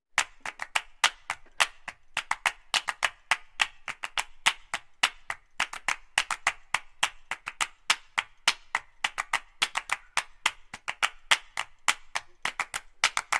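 A rapid, irregular run of sharp clicks, about four a second.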